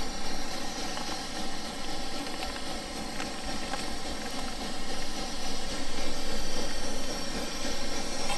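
Liquid-fuel backpacking stove burning with a steady hiss under a pot of water at a rolling boil.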